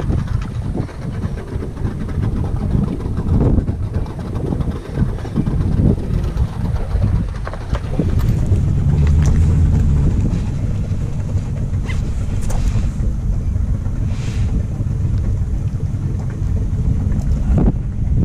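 Wind buffeting the microphone: a loud, steady low rumble, with a few faint brief scuffs over it partway through.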